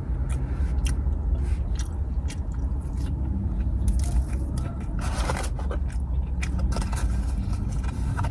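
Close-up mouth sounds of a person biting and chewing fast food, with many short wet clicks and crunches, over a steady low rumble.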